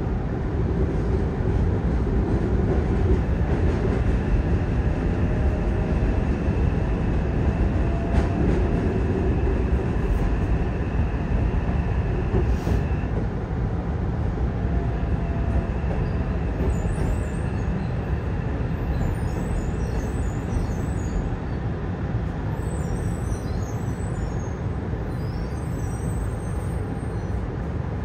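Cabin running sound of a Yokohama Municipal Subway 3000N-type train with Mitsubishi IGBT-VVVF control: a steady wheel-and-track rumble with a faint motor whine as it runs into a station. A single click sounds about halfway through.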